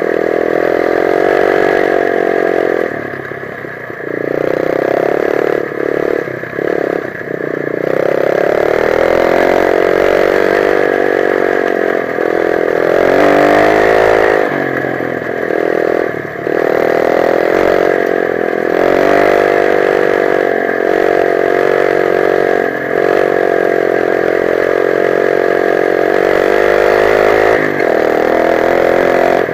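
125 cc dirt bike engine running under changing throttle, its revs rising and falling as it is ridden. It eases off briefly a few seconds in and again around six to eight seconds in, and revs up again near the middle.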